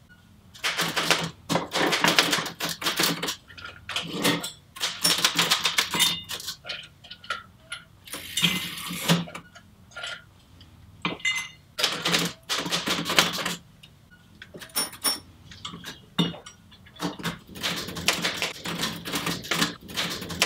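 Ice cubes clattering into a glass and glassware clinking on a metal serving tray as a scotch on the rocks is made. The clinking comes in several bursts of rapid clicks, each a second or two long.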